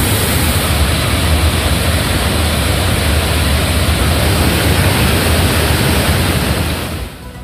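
Waterfall in full flood: a steady, loud rush of heavy falling and surging water, stopping shortly before the end.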